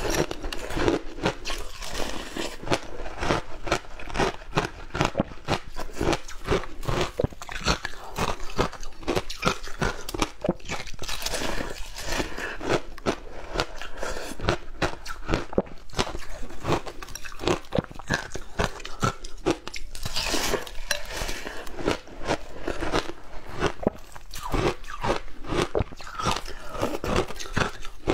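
Shaved ice coated in passion fruit pulp being bitten and chewed, a dense stream of crisp crunches.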